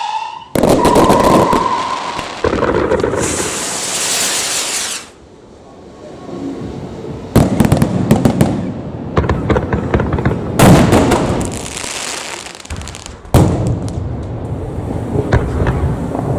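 Fireworks going off: a brief whistle, then a hissing rush, then three loud volleys of sharp bangs and crackling.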